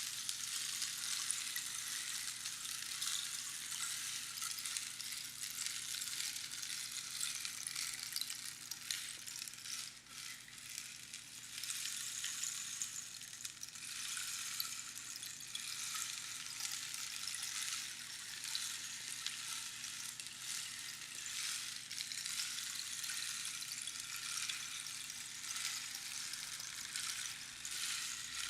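Rainstick being tipped, small pebbles or beans trickling down past the pins inside the hollow cactus tube in a dense, continuous patter like falling rain, easing briefly about ten seconds in.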